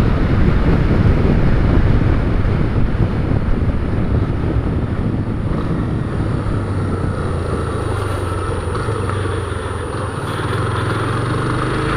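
Motorcycle engine running steadily while riding along a street, with road noise, picked up by an action camera's external microphone. The level sags a little through the middle and comes back up near the end.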